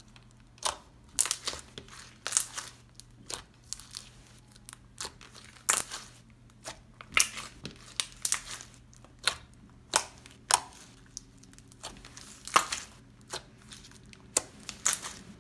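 Thick, glossy slime with a crunchy top layer being stretched, poked and squeezed by hand, giving irregular sharp crackles and clicks, a few each second.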